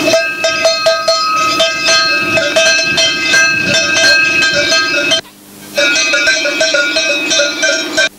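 Several cowbells on walking cattle clanking irregularly, with many overlapping ringing strikes. The sound cuts out for about half a second around five seconds in.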